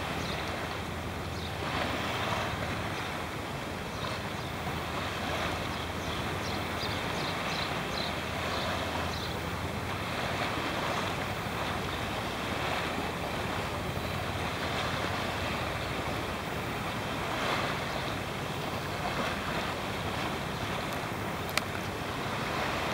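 Small sea waves splashing and washing in irregular surges, with wind rumbling on the microphone. A single sharp click near the end.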